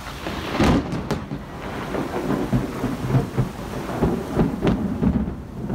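Thunder from a lightning strike: sharp cracks about a second in, then a long rolling rumble with further crackles, over steady rain.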